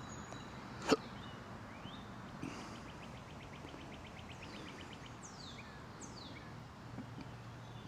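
Small birds calling: a rapid high trill of about ten notes a second, then a few quick falling high calls, over a steady low hum. A single sharp click about a second in is the loudest sound.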